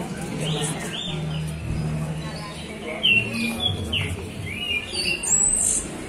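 Many caged songbirds chirping and calling: short falling whistles and chirps come one after another, with a higher sweeping call about five seconds in. A low steady hum runs underneath.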